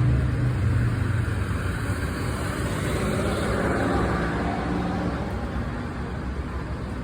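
A vehicle engine running with a low, steady hum that slowly fades.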